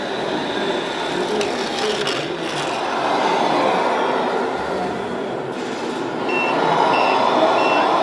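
Radio-controlled model trucks running with a steady electronic engine sound from their sound modules, over the din of a hall. About six seconds in come three short, high, evenly spaced beeps of a model truck's reversing beeper.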